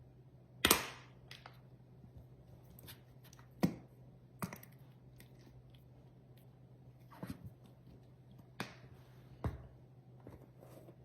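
About half a dozen sharp clicks and knocks of kitchen containers being handled, likely a spice container opened and tapped over the mixing bowl, the loudest about a second in and again near four seconds, over a faint steady hum.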